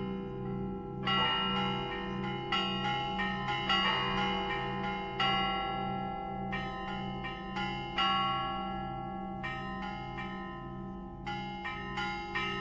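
Russian Orthodox church bells rung by hand in a zvon. Two low bells alternate in a steady rhythm while smaller, higher bells are struck in irregular clusters over them, each strike ringing on.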